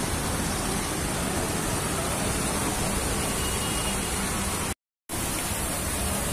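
Water cascading over the steps of a fountain, a steady rushing spill. The sound cuts out completely for a moment about five seconds in.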